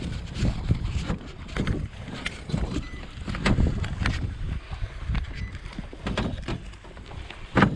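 Wind rumble on a forehead-mounted GoPro's microphone, with irregular knocks, clicks and rustles of handling in a small boat. A sharp knock near the end is the loudest.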